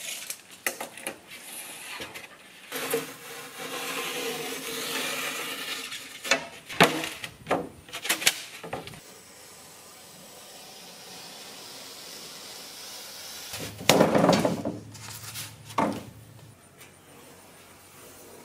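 Hand-tool work on a bench: a tape measure, and a utility knife scoring rigid foam board along a metal straightedge. Scattered clicks and knocks, with a longer stretch of scraping and a louder clatter near the end.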